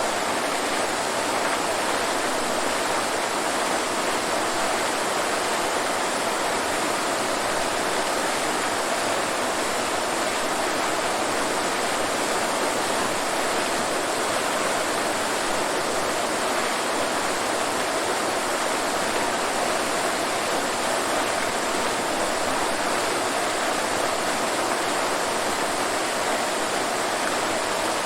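Waterfall: water falling and rushing in a steady, even hiss with no change.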